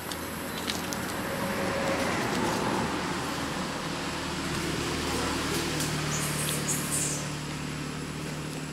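A motor vehicle's engine and road noise: a steady hum that swells about two seconds in and holds on.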